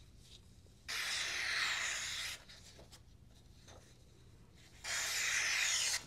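Two long slicing cuts with the S90V hollow-ground blade of a QSP Penguin pocket knife, each a rasping hiss lasting just over a second. The first comes about a second in and the second near the end.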